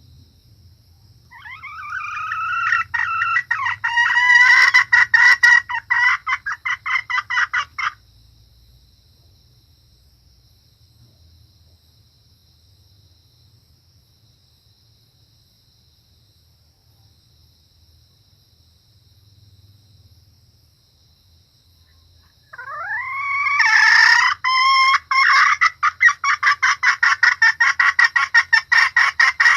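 Junglefowl hen calling in two bouts, each starting with rising notes and breaking into a fast run of repeated cackling notes; the first stops about eight seconds in, and the second starts near the end. Faint steady high insect-like tones run beneath.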